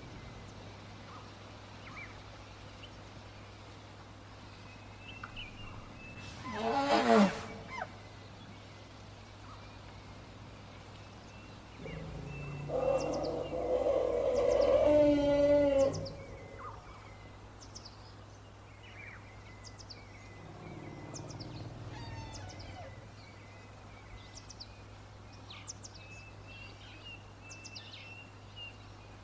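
African bush elephant calls: a short trumpet about seven seconds in, then a longer, louder call from about twelve to sixteen seconds in. Birds chirp briefly throughout.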